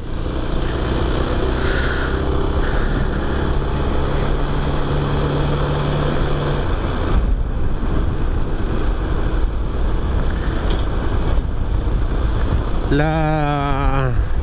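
Chinese motorcycle's engine running steadily at cruising speed, under heavy wind noise on the helmet microphone. A man's voice starts speaking near the end.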